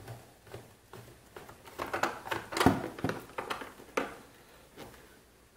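Flathead screwdriver scraping and clicking in a screw in a plastic hedge trimmer housing, with scattered small knocks from handling the housing, the sharpest about two and a half seconds in.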